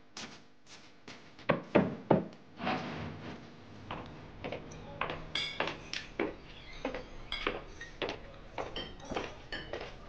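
A few knocks and thumps, the loudest about two seconds in, then from about four seconds in a run of light taps, about two a second, mixed with bright clinks of cups and saucers over a steady room hum.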